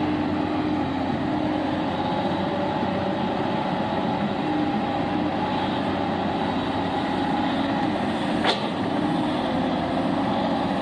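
Tracked excavator's diesel engine running steadily under load as it drags a loaded sled, with one sharp clank about eight and a half seconds in.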